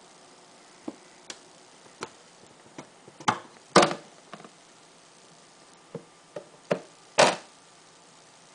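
Scattered light clicks and taps from a hand handling a glass terrarium's hinged front panel, with two louder knocks about four and seven seconds in.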